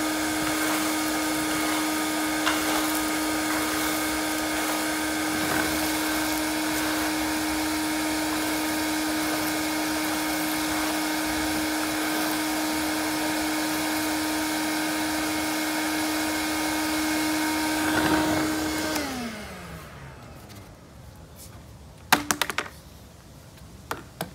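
Ridgid NXT wet/dry shop vac running steadily with a constant whine. About 19 seconds in it is switched off and the motor spins down, its whine falling in pitch, followed by a couple of sharp knocks.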